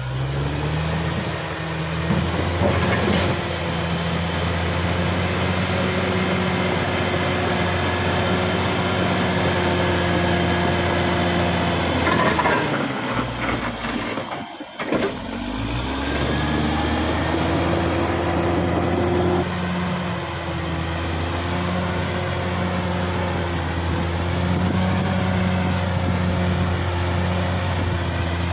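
Diesel engine of a CAT D6R XL bulldozer running steadily at working load. About halfway through, its note sags and then climbs back up.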